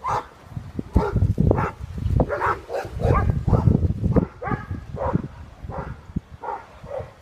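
A dog barking over and over in short barks, roughly two a second, over a low rumble.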